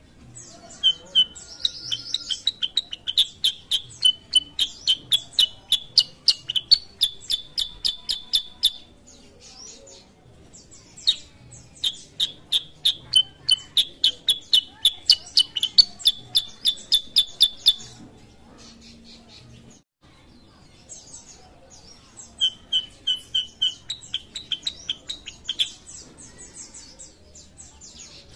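Black-headed bulbul (kutilang sutra) singing in three long bouts of fast, repeated chirping notes, about five a second, with pauses of a few seconds between bouts.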